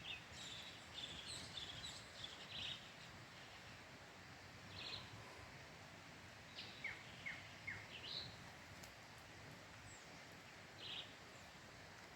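Faint birdsong: scattered short chirps and whistles, with three quick falling notes about seven seconds in, over a soft outdoor background hiss.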